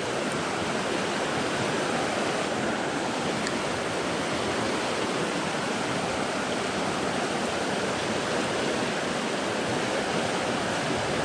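A small rocky mountain stream rushing steadily, its water tumbling white over a riffle of rocks.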